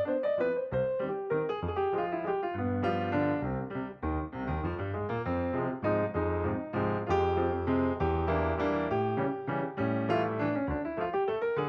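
Background piano music: a run of quickly struck notes over a steady bass line.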